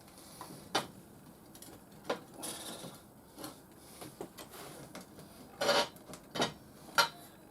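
Scattered knocks, clinks and a couple of short scrapes of steel parts being handled and set down on a metal workbench.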